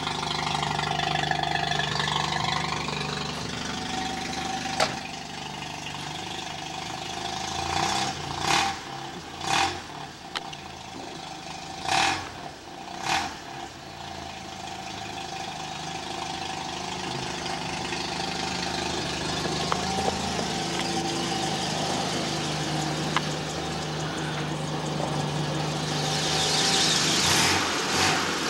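1981 Mazda RX-7's 12A rotary engine with headers, running at idle, with four short loud bursts in two pairs in the middle and a louder hiss near the end.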